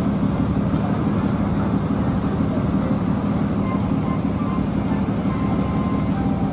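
Diesel engine of a tour coach running steadily as the bus drives slowly, a low even engine sound.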